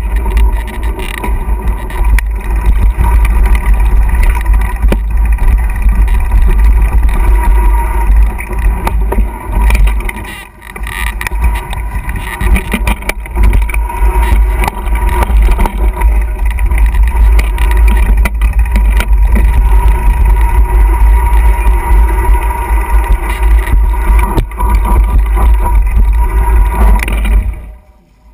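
Wind buffeting the microphone of an action camera riding a mountain bike downhill, a heavy steady rumble mixed with the knocks and rattle of the bike over a rough trail. It eases briefly about ten seconds in and dies away near the end as the bike slows.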